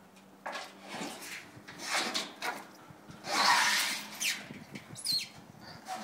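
A brown bear shifting a rubber car tyre against the plastic tub it sits on: a string of rubbing and scraping noises with a brief rising squeak. The loudest is a scrape of under a second about halfway through.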